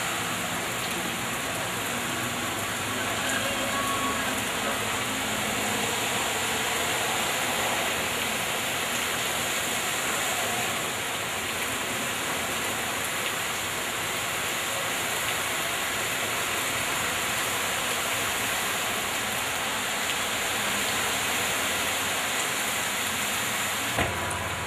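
Steady, even rushing of water: rain and floodwater running across a flooded street.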